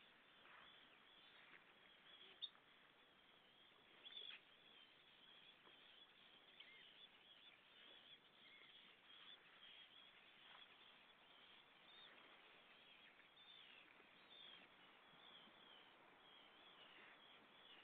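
Near silence with faint, scattered bird calls. A sharp tick about two and a half seconds in is the loudest sound.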